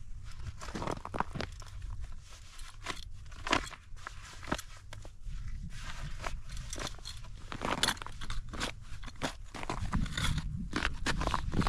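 Snow crunching in a series of irregularly spaced crunches over a low, steady rumble.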